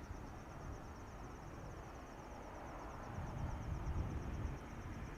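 Quiet background: a steady, fast, high-pitched insect trill over a faint low rumble that swells slightly about three seconds in.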